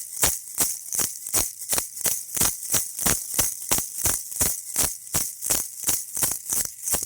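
Baby rattle shaken steadily in an even rhythm, two to three strong shakes a second with lighter rattles between, a bright, high rattling of the beads inside.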